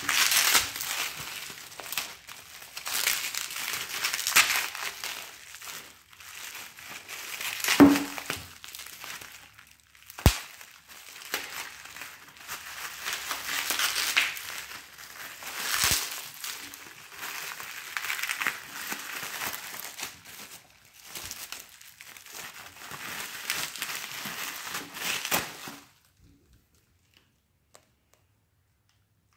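Plastic bubble wrap crinkling and crackling in repeated swells as hands unwrap it, with a couple of sharp clicks along the way. The crinkling stops a few seconds before the end.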